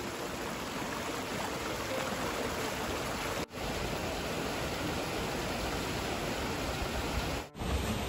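Mountain stream rushing over rocks, a steady even wash of water, breaking off for an instant twice.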